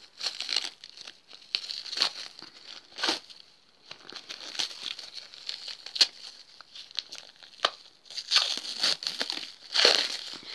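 Parcel wrapping crinkling and tearing in irregular bursts, with a few sharp snaps, as it is unwound by hand; it comes off only badly.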